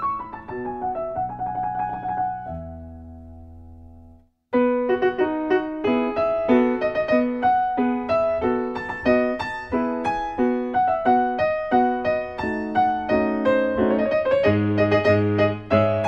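Solo piano background music. One piece ends on a held chord that fades away, and after a brief silence about four seconds in, another piano piece begins with a busy run of notes.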